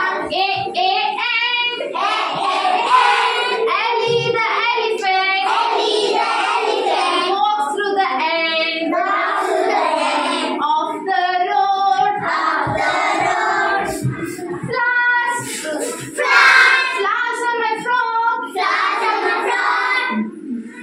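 A group of young children singing an English alphabet-sounds (phonics) action song together, led by a woman.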